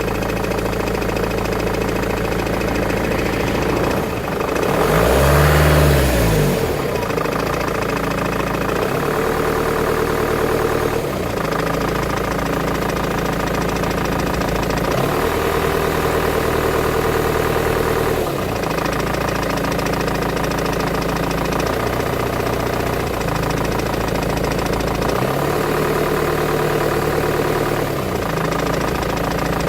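2001 BMW E46 320d four-cylinder diesel engine idling with a clattering, rattling noise, which the owner says disappears as soon as a little throttle is given. The engine mounts are new, so they are not the cause. About five seconds in, the engine is briefly revved and drops back to idle.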